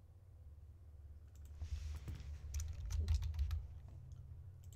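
Typing on a computer keyboard: a quick, uneven run of key clicks that starts about a second and a half in, over a steady low hum.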